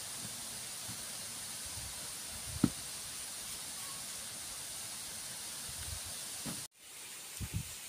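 Steady high-pitched hiss in the background, with soft knocks of a knife cutting mangoes and one sharp knock about two and a half seconds in. The sound drops out for a moment near the end, then a few soft thumps follow.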